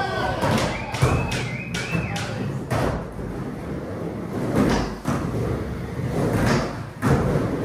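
Skateboard wheels rolling across a plywood mini ramp, a steady low rolling noise broken by repeated sharp thumps and clacks of the board hitting the ramp and coping as the skater rides back and forth.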